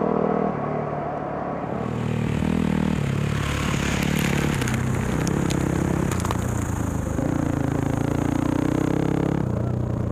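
Dual-sport motorcycle engine running under way on a dirt road, its pitch stepping up and down as the revs change, over wind noise. Scattered clattering ticks come through about halfway.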